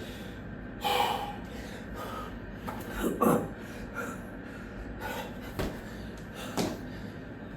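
A man breathing hard, out of breath from burpees, with a heavy gasping breath every second or two over a steady low hum.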